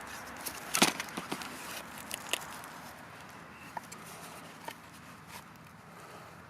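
Scattered light clicks and knocks, the loudest about a second in and fewer after the first few seconds, over a faint steady hiss.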